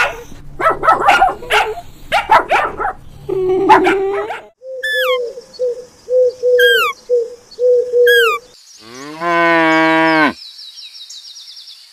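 A cow mooing: one long call about nine seconds in, rising and then falling. It comes after a string of other loud animal calls and a repeated note with short falling whistles.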